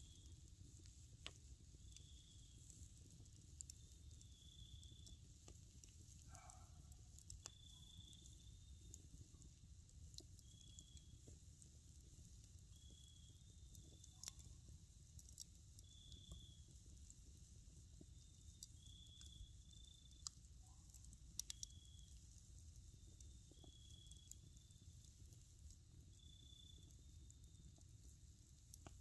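Wood campfire burning quietly, with faint, sparse crackles and a few sharper pops about two-thirds of the way through. A faint high chirp repeats about once a second.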